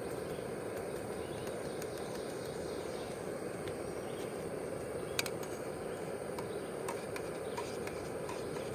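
Steady rushing outdoor noise with a thin, steady high hum and a few faint clicks, the clearest about five seconds in.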